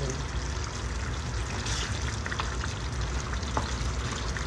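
Menudo sauce bubbling at a simmer in a frying pan on a gas stove, a steady wet crackle over a low rumble, with a few light knocks of a wooden spatula against the pan, the clearest about three and a half seconds in.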